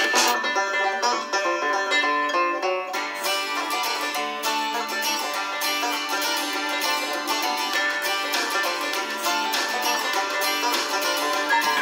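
Background music: a bluegrass-style tune on plucked strings, with banjo to the fore, playing steadily throughout.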